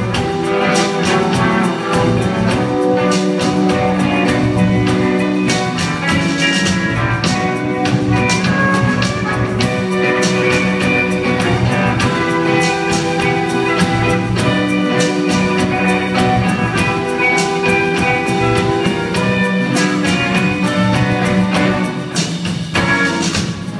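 Live band playing an instrumental break with no singing: electric and acoustic guitars over a drum kit, at a steady level.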